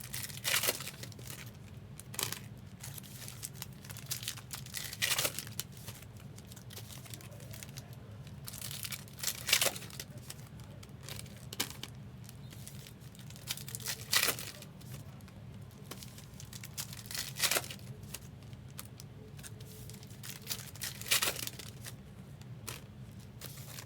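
Trading-card pack wrappers being torn open and crinkled in short bursts every few seconds, over a steady low hum.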